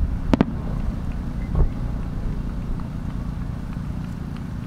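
Booms of a two-shaku (about 60 cm) aerial fireworks shell's burst echoing back: a sharp bang about half a second in, a softer thud about a second later, then a low rumble slowly dying away.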